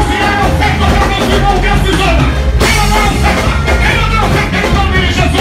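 Live gospel worship band playing loudly: a drum kit and keyboard keep a steady, driving beat under sung melody from the worship leader and backing singers.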